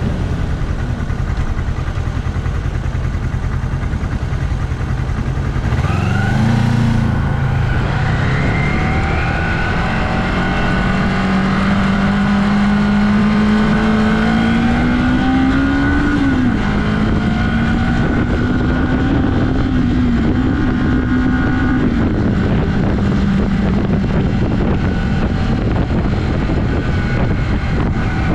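1982 Yamaha XS400 Maxim's air-cooled parallel-twin engine pulling hard under acceleration. After a few seconds at steady speed the revs climb steadily for about ten seconds, fall back at an upshift, climb again, and drop at another shift a few seconds later.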